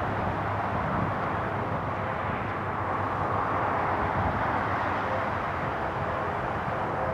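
Steady distant vehicle rumble and hiss with a faint steady hum, no single event standing out.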